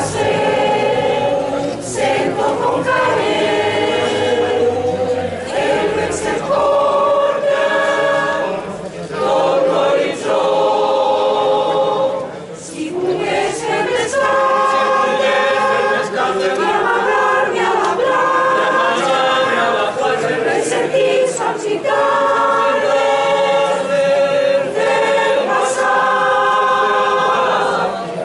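Mixed choir of men's and women's voices singing a Catalan Easter caramelles song in sustained phrases, with short breaks for breath between lines.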